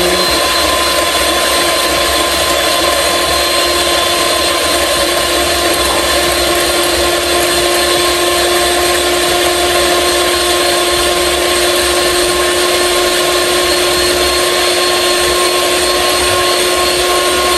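Electric mixer running steadily at one speed, beating eggs until they turn slightly foamy.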